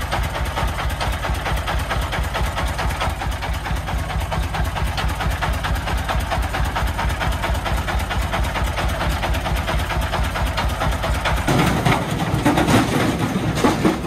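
Diesel engine of a three-wheeled công nông dump truck, modified to 40 hp, idling with an even, rapid knocking beat. About eleven and a half seconds in it runs up louder under load as the dump bed starts to tip.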